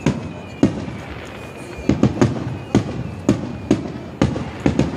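Star mine fireworks display: aerial shells bursting in quick succession, about ten sharp bangs in five seconds, some close together in pairs. A faint high whistle runs under the bangs.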